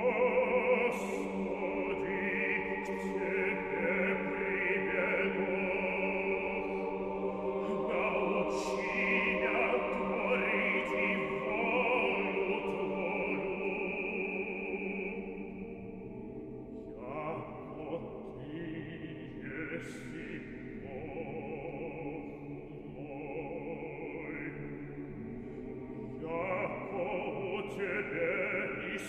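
Church choir singing Orthodox liturgical chant a cappella in long held chords, softer in the middle and swelling again near the end.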